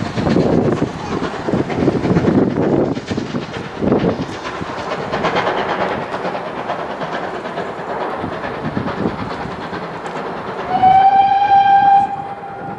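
A train rumbles and rattles along the line, heaviest in the first few seconds. Near the end a steam locomotive whistle sounds once for about a second: a single steady note that slides up slightly as it opens, and the loudest sound here.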